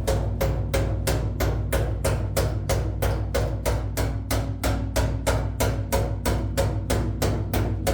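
Background music with a steady drum beat, about four even hits a second over sustained low notes.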